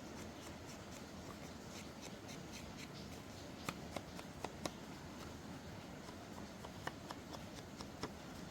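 Paper being handled and shuffled, scattered light rustles and taps with a small cluster of them about halfway through, over a steady hiss of rain.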